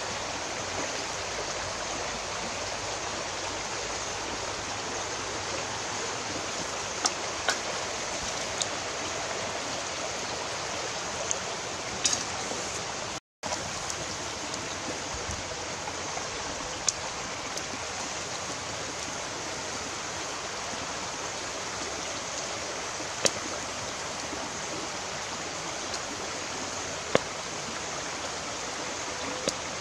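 Steady rushing hiss with a few sharp clicks scattered through it; it cuts out for an instant about halfway.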